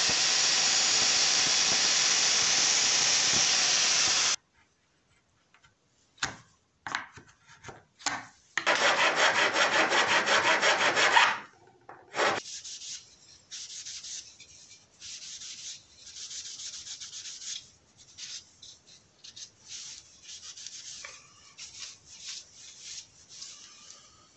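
Wood being sanded and rubbed by hand in separate bursts. A loud, steady stretch at the start cuts off suddenly after about four seconds. Later comes a loud run of quick, even strokes, followed by softer, scattered rubbing.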